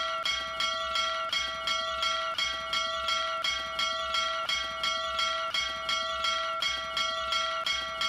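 Brass bell struck over and over by its clapper, pulled on a rope, about two or three strikes a second, so the ringing never dies away between strokes.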